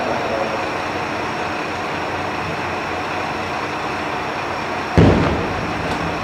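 A large firework shell bursting with one deep boom about five seconds in, fading over about a second. Under it runs the steady sound of a Jōsō Line diesel railcar idling at the platform.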